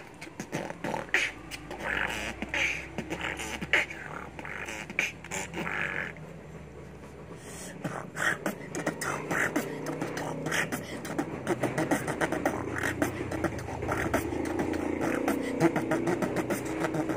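A boy beatboxing, making kick, snare and hi-hat sounds with his mouth in a fast rhythm. The beat stops for about a second and a half around six seconds in, then resumes denser, with a low held tone under the beats.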